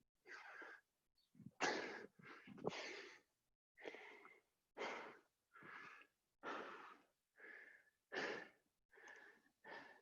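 Hard, wheezy breathing of people winded by burpees, a loud breath in or out about once a second, some with a whistling edge.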